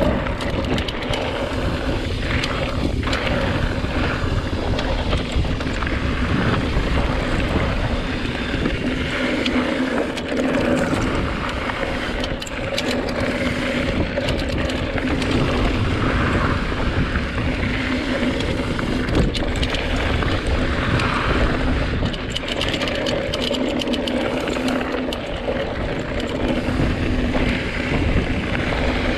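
Wind buffeting an action camera's microphone while a mountain bike is ridden along a dirt trail, with heavy rumble from the tyres and ground and scattered clicks and rattles from the bike. A steady hum runs underneath.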